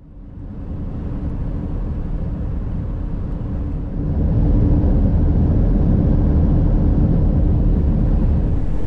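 Road noise from a vehicle driving at highway speed: a loud, deep rumble of tyres and wind with a steady hum running through it. It swells over the first second and grows louder again about four seconds in.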